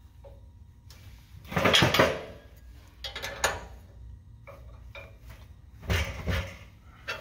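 Steel open-end wrench clanking against a steel jam nut and stop plate as it is fitted and turned to tighten the jam nut on a sliding 5th wheel hitch's forward stop. A loud metal clatter comes about a second and a half in, lighter clinks follow, and another clatter comes near the end.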